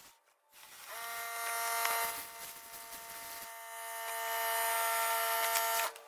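Compressed-air blow gun blasting air onto a motorcycle drive chain to dry it, a whistling hiss that starts about a second in, eases and swells again, then cuts off suddenly near the end.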